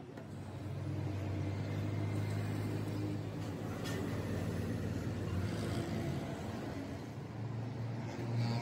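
A machine motor running steadily with a low hum, growing louder about a second in, with a faint click about four seconds in.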